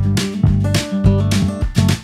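Background music: strummed guitar over a bass line, in a steady rhythm of about two strokes a second.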